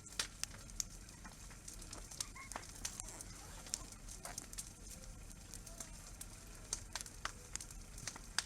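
Wood campfire burning, crackling with irregular sharp pops.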